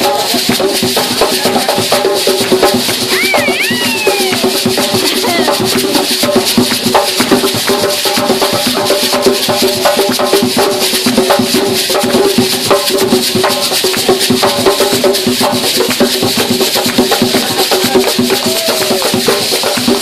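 Gwo ka rhythm played on a hand drum, with gourd shakers rattling and hands clapping, under voices singing.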